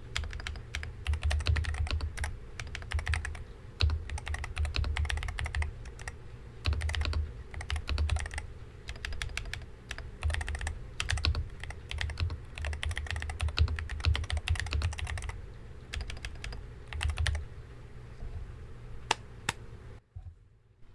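Typing on a MadLions MAD60 HE keyboard with magnetic Hall-effect switches: rapid runs of keystroke clicks that thin to a few single key presses near the end and then stop.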